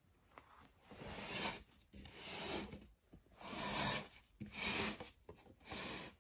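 Handling noise from a subwoofer cabinet being gripped and shifted by hand: five short rubbing, scraping bursts.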